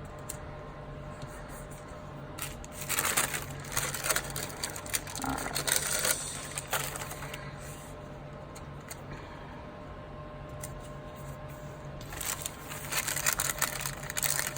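Sticker sheets and planner paper being handled, rustling and crackling as stickers are peeled off and pressed onto the page, in two spells: one starting about two and a half seconds in and a shorter one near the end. A steady low hum runs underneath.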